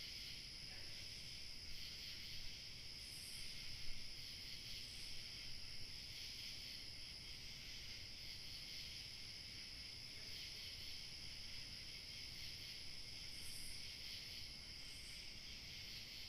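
Night-time insect chorus, crickets chirring in a steady shrill band, with a thinner, higher steady trill above it and a few faint brief calls.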